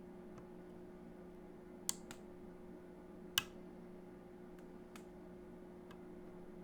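Scattered small clicks of lock picks working inside a DOM Diamant lock cylinder, the two sharpest about two seconds and three and a half seconds in, with a few fainter ticks after, over a steady low hum.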